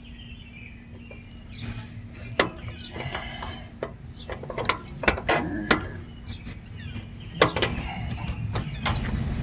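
Irregular metallic clicks, knocks and scrapes of hand work on a Wheel Horse 520H garden tractor's belt drive, as the tiller drive belt is worked onto the pulleys, with a few sharper knocks among them.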